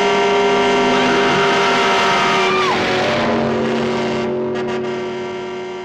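Car engine sound effect, loud and steady, then fading away over the last couple of seconds, with a brief falling squeal-like tone near the middle.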